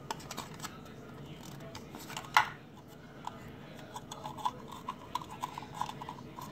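Fingernails picking and scratching at a plastic Foodie Roos toy capsule while trying to pry part of it off: small scrapes and clicks, one sharper click about two seconds in, then a run of quick faint ticks.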